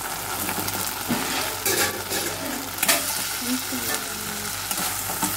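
Hot Manchurian gravy sizzling steadily in a non-stick wok as fried cabbage balls are tipped in from a glass bowl, with a few sharp knocks from the bowl and spoon against the pan.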